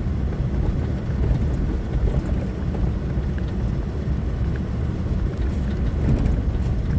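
Truck running: a steady low rumble with no breaks.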